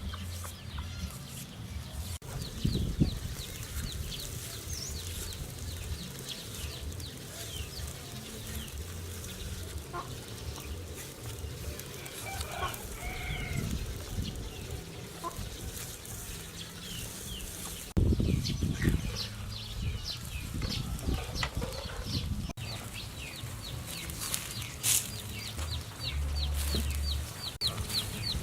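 Chickens clucking, with a run of high, quick repeated cheeps. Several low thumps and knocks come about three seconds in and again around eighteen to twenty-one seconds.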